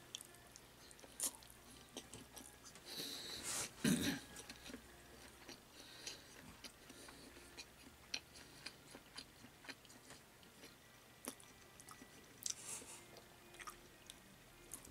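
Faint close-up sounds of a person chewing a mouthful of salad, with scattered small clicks and a louder short sound about four seconds in.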